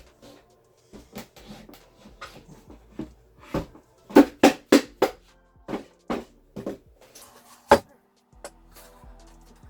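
Background music with sharp drum hits, a quick run of four strong beats in the middle, over faint sustained tones.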